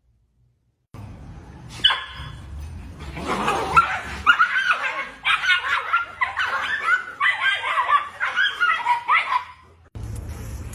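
A dog making a quick run of high-pitched yips and whines that bend up and down in pitch. It starts about a second in and stops shortly before the end.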